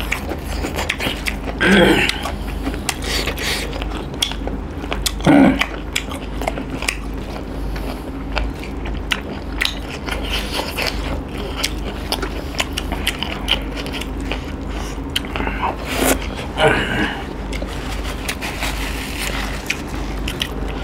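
Close-miked eating sounds of people eating rice and chicken curry with their hands: chewing and biting, and wet squelching of fingers working rice and gravy, with many small clicks and crackles. A few short vocal sounds stand out now and then.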